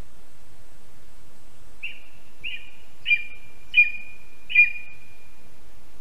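Lesser spotted eagle calling: five high, short calls about two-thirds of a second apart, beginning about two seconds in, the last three loudest.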